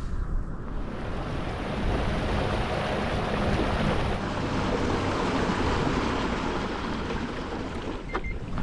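Water rushing and splashing along the hull of a fishing kayak running under its motor, with wind buffeting the microphone. A couple of light knocks near the end.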